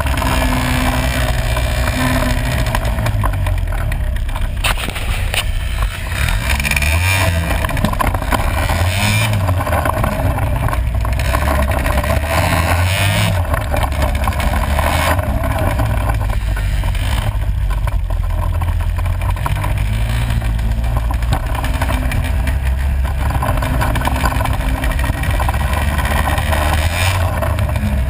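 Four-wheeler (ATV) engine running and revving as it is ridden over a bumpy dirt trail, heard up close from a camera mounted on the quad's handlebars, with the pitch and level shifting with the throttle.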